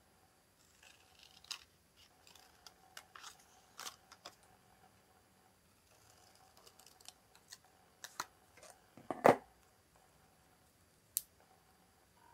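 Scissors cutting freehand through a sheet of white paper: a run of short, uneven snips, with one much louder click about nine seconds in.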